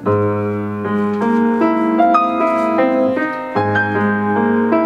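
Solo piano playing a flowing run of notes between sung phrases, with a low bass note struck at the start and again about three and a half seconds in.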